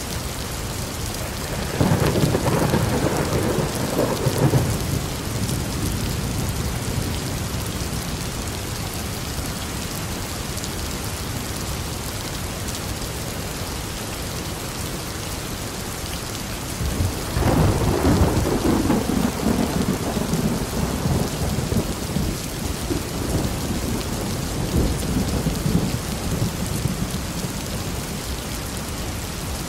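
Steady rain with two rolls of thunder. The first cracks in about two seconds in and rumbles for a few seconds. The second starts a little past halfway and rolls on, slowly fading, for close to ten seconds.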